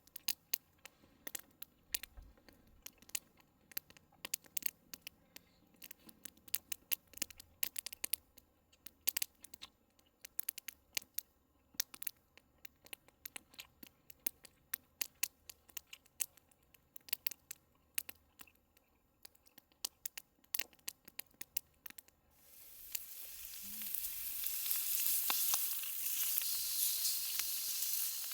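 Scattered sharp crackles, then about 22 seconds in a loud, steady sizzle starts: beef tongue steak frying on a hot iron grill plate over a campfire.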